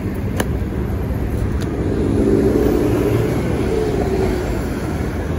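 Tatra T3SU tram running, with a steady low rumble and a motor whine that swells and glides up and then down between about two and four and a half seconds in. A sharp click sounds about half a second in.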